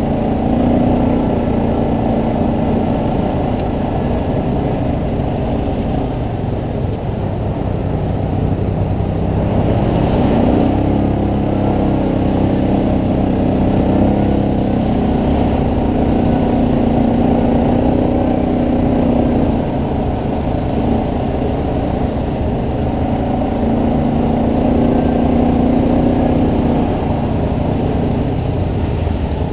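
ATV engine running under way, loud and continuous, its pitch stepping up and down several times as the throttle changes.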